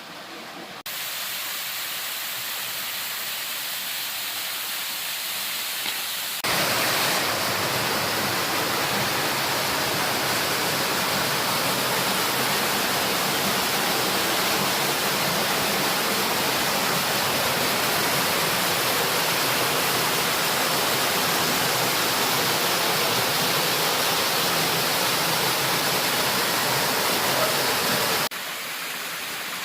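Steady rush of falling water. It jumps louder suddenly about a second in and again around six seconds in, then drops suddenly near the end.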